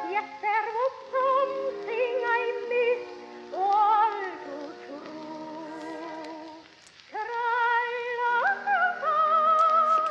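Background music: a sung melody with strong vibrato from a historic early-1900s recording, with a brief pause between phrases about two-thirds of the way through.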